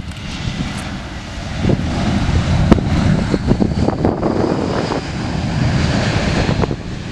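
Airbus A320-family jet airliner landing and rolling out on the runway, its engines getting louder about two seconds in and holding there, with a faint high whine over the noise. Gusting wind rumbles on the microphone.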